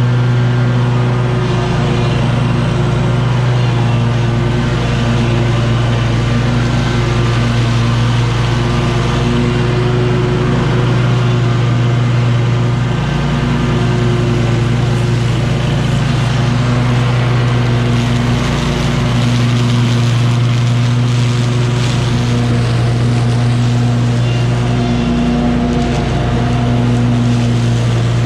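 Engine of a SCAG V-Ride 2 stand-on commercial mower running steadily at mowing speed, its hum mixed with the whir of the cutting deck, dipping briefly in pitch three times.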